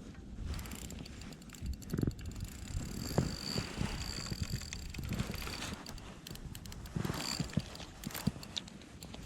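Spinning reel being cranked in short spells during a jig retrieve, a high gear whine each time, with scattered clicks and knocks of handled tackle.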